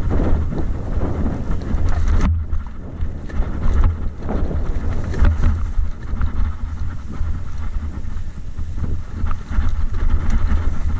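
Wind buffeting the microphone of a camera riding a mountain bike downhill on a rough dirt trail, a constant low rumble, with tyre noise and short rattling knocks as the bike goes over bumps. The high hiss thins out suddenly about two seconds in.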